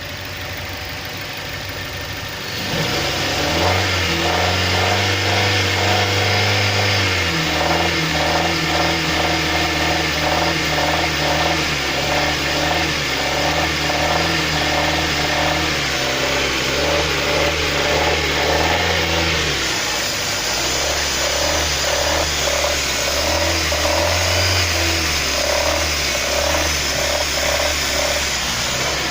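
Car engine running with a regular knocking sound from the engine. It gets louder and revs up about two and a half seconds in, then its pitch steps up and down as the revs change.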